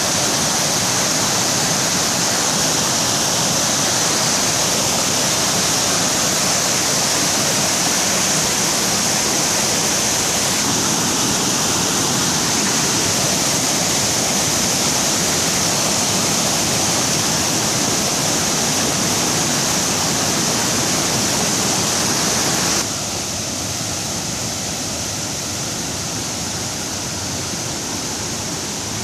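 Camanducaia River waterfall running high, a loud steady rush of falling water. About 23 seconds in it drops a little in level and thins in the middle.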